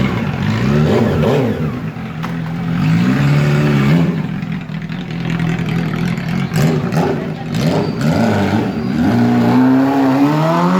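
Honda CB400 Super Four Hyper VTEC Spec 1's inline four-cylinder engine being revved: several quick blips that rise and fall back, and a longer climb in revs near the end.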